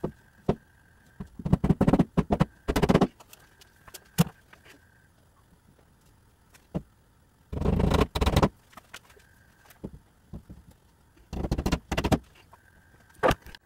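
Hammer blows in short quick runs of strikes, with single knocks between, as a cloth green screen is fastened to the wall.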